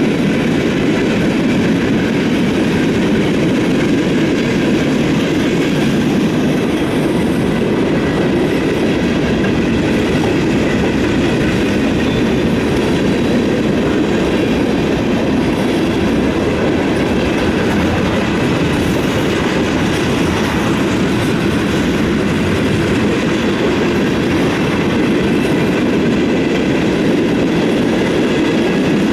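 Freight train cars rolling past close by: a steady rumble of steel wheels on the rails, with faint high steady tones over it.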